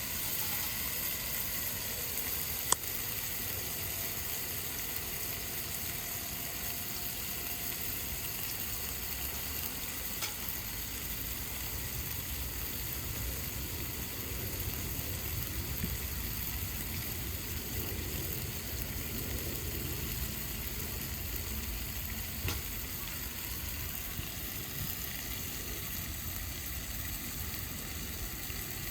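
Food sizzling steadily in hot oil in a pan over a campfire, with a fine crackling hiss. A single sharp click about three seconds in, and a fainter one near the end.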